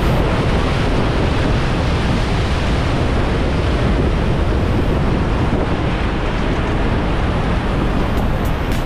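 Steady, loud wind and road noise from a vehicle driving along, with a rapid run of light ticks near the end.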